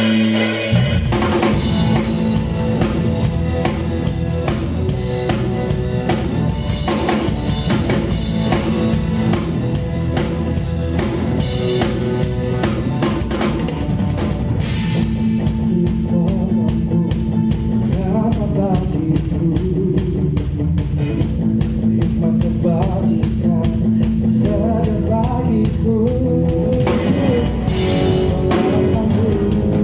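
Live band music driven by a full drum kit playing a steady, busy beat with snare and bass drum over sustained instruments.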